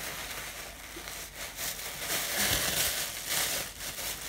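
Plastic food packaging crinkling and rustling as meat packs are handled, louder in the second half.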